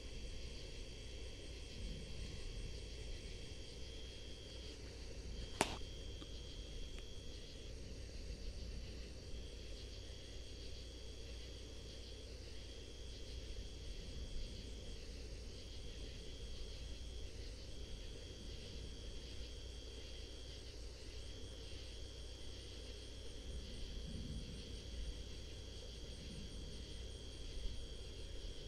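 Night insects trilling steadily, one high even trill that breaks off for short gaps every few seconds, with a faster, fainter trill above it over a low background rumble. A single sharp click about six seconds in.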